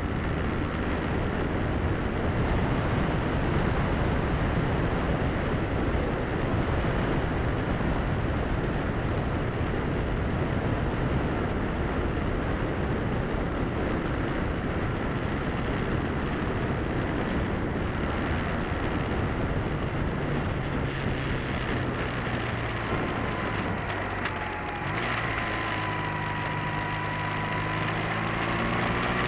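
Honda Rebel motorcycle engine running at road speed, heard under heavy wind noise on the handlebar-mounted camera. Near the end the engine note dips briefly, then rises steadily as the bike accelerates.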